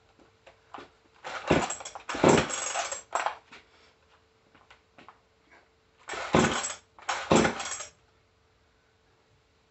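Pull-cord starter of a 62cc Chinese-made two-stroke chainsaw being yanked in two rough bursts of pulls, about a second in and again about six seconds in. Each burst stops dead, the engine not catching.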